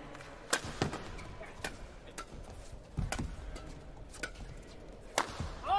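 Badminton doubles rally: the shuttlecock is struck back and forth by rackets, about seven sharp cracks roughly a second apart. A man's shout comes right at the end as the point finishes.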